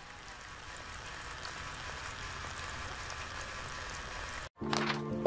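A thin jet of water from a small model water pump splashing steadily into a muddy puddle, an even splattering hiss. It cuts off suddenly near the end, and a music jingle starts.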